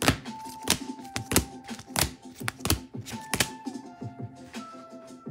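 Rigid plastic card cases clacking against each other, a sharp click every half second or so, as cased trading cards are flipped through one after another; the clicks thin out near the end. Soft background music with held tones runs underneath.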